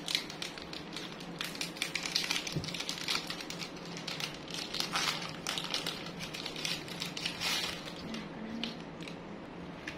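Small sachet packet crinkling as it is torn open and handled, a run of short crackles.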